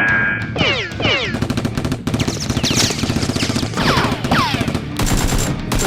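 Rapid automatic gunfire sound effects, dubbed over the battle, with several quick falling whizzes mixed in.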